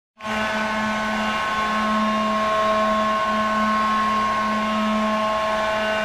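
Ice hockey goal horn, the Victoria Royals' horn, sounding one long steady blast that starts a moment in.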